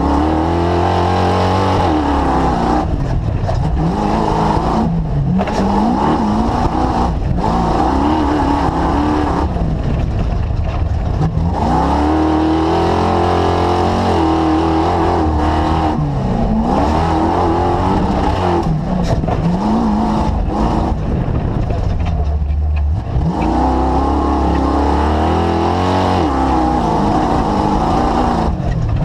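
Engine of the DirtKinetics Explorer running hard through a lap, its pitch rising and falling again and again as it accelerates and backs off.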